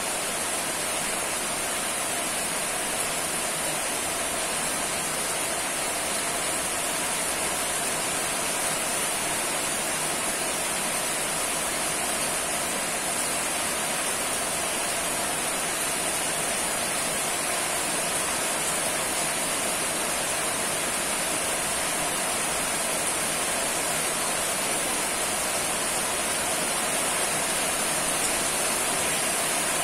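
Steady rain falling, a constant even hiss with no separate drops standing out.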